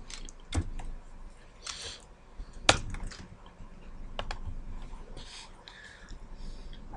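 Computer keyboard and mouse clicks: scattered, irregular taps, with one sharper click about two and a half seconds in.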